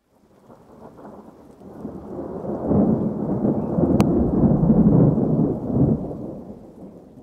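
A long roll of thunder: a low rumble that builds over the first few seconds, peaks in the middle and dies away near the end.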